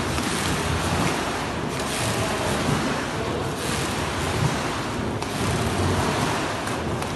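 Water splashing and churning in an indoor rowing tank as a sweep oar blade drives through it, the rush swelling and easing with each rapid stroke.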